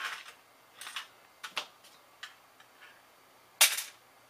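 A computer motherboard being handled, turned over and set down on the workbench: a series of light clicks and knocks, with the loudest clatter near the end.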